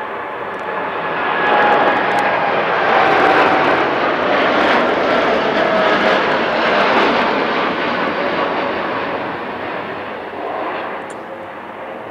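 Jet airliner's engines passing low overhead: a broad roar that swells over the first couple of seconds, holds, and fades through the second half. Fan whine tones slide slowly down in pitch as the aircraft goes by.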